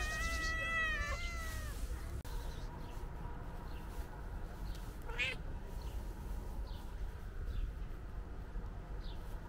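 Stray domestic cat meowing: one long meow at the start, then a short wavering call about five seconds in.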